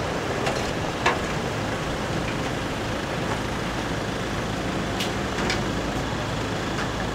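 Steady outdoor bazaar din, a constant noisy rumble like nearby traffic or machinery, with a few short clinks and knocks about a second in and around five seconds in.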